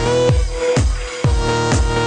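Electronic dance music: a deep kick drum falling in pitch on every beat, about two a second, under buzzy synth chords and a lead note that slides up into a long held tone near the start.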